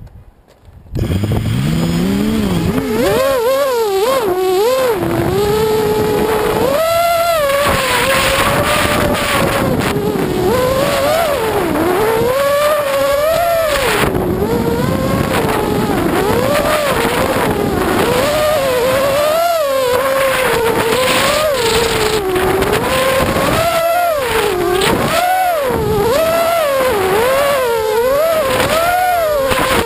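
Radio-controlled model car's motor, heard from on board, pulling away about a second in with a rising pitch, then revving up and down continuously as it drives laps.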